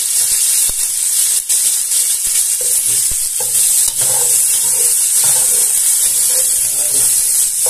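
Onion, garlic and tomato sizzling in hot oil in a pot while a spatula stirs them, with a few sharp clicks of the spatula against the pot.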